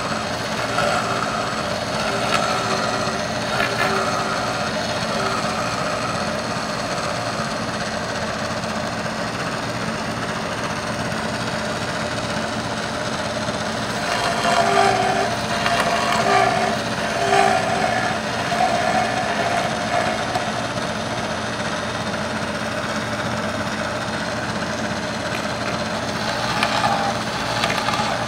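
CNC milling machine running, its spindle and small end mill cutting a pocket in a metal plate: a steady machining noise with a short pitched whine that pulses on and off in spells, in the first few seconds, through the middle, and again near the end.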